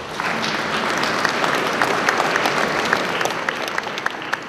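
Audience applauding, the clapping swelling in the first second and thinning out toward the end.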